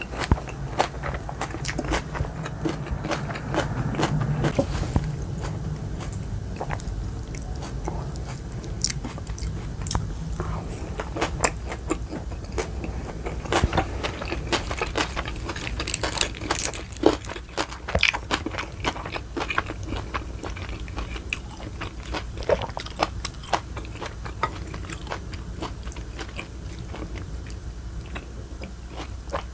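Close-miked chewing and biting: wet smacks and clicks of a mouth eating soft, saucy raw oyster salad and boiled pork, with an occasional crunch.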